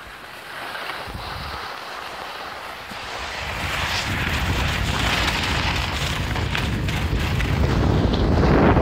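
Wind rushing over the microphone of a skier going downhill, with skis hissing on packed snow. It grows louder from about three seconds in.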